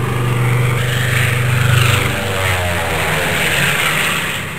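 Propeller airplane flying past, its engine drone steady at first, dropping in pitch about halfway through and fading near the end.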